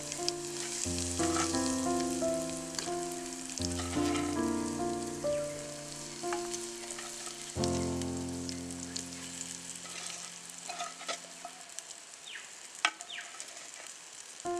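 Raw mango pieces with chili powder sizzling in coconut oil in a clay pot, with a few sharp clicks near the end as the pot is stirred. A melodic background music track plays over the first two-thirds and fades out.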